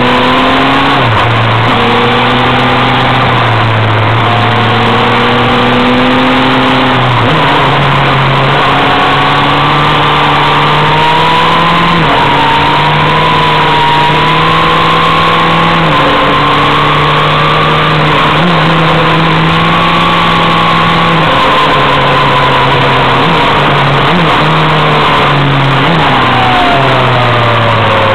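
Sport motorcycle engine running hard through bends, its pitch stepping up and down with throttle and gear changes, and a falling note near the end as it slows.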